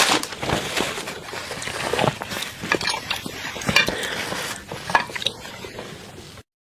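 Close-miked crackling and clicking of food being handled against a ceramic plate, with a few louder sharp clicks. The sound cuts off suddenly near the end.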